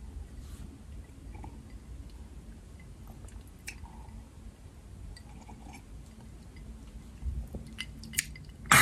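Someone sipping and swallowing from a glass tumbler: faint mouth and glass clicks, then a loud, short breathy rush of noise near the end.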